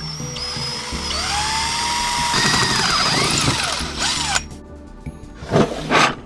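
Cordless drill boring a hole through a metal tube: the motor whine rises as it spins up, and the bit grinds through the metal, loudest for the last two seconds before it stops about four seconds in. Two short, sharp knocks near the end.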